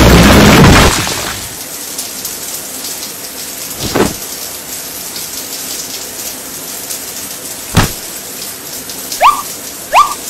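Showers running steadily in a tiled shower room, broken by two dull thumps and, near the end, three short rising squeaks. Music cuts off about a second in.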